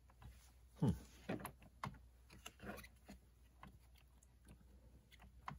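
Hard plastic parts of a 1/8-scale RC truck chassis being handled and fitted by hand: scattered clicks and knocks, with a louder thump about a second in.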